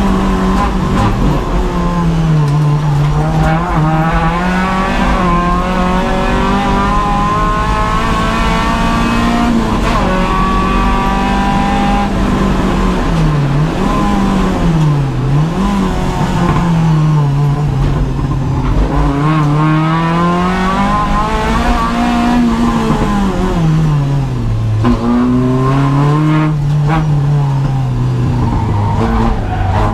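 Renault Clio 172's 2.0-litre four-cylinder engine heard from inside the stripped cabin under hard track driving, its revs climbing and falling over and over with gear changes and lifts for corners, with a few quick drops and recoveries in pitch near the middle and again near the end.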